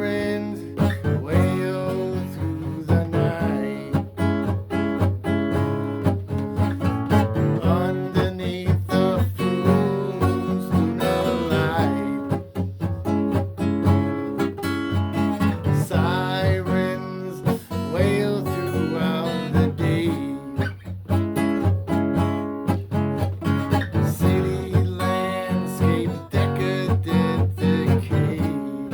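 Acoustic guitar music, strummed and plucked, playing throughout.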